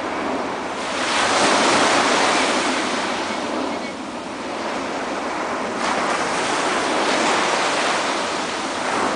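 Surf breaking on a sandy beach: a steady rushing wash of waves that swells about a second in and again about six seconds in.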